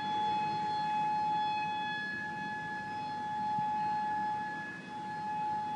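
Outdoor tornado warning siren sounding a steady wail at one pitch, its loudness slowly swelling and fading.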